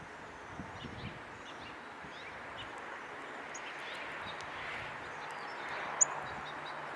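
Outdoor ambience at a bird feeder: a steady hiss that swells a little in the middle, with short, high bird chirps scattered through and one sharp click about six seconds in.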